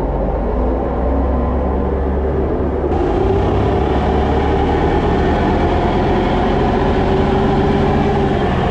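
Old MerCruiser sterndrive engine running hard under load, pulling the boat up onto plane. It gets louder and brighter about three seconds in.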